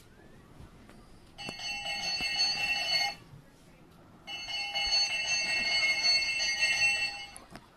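Bells clamoring in two long bursts of steady ringing, the first starting about a second and a half in and lasting under two seconds, the second starting about four seconds in and lasting about three seconds.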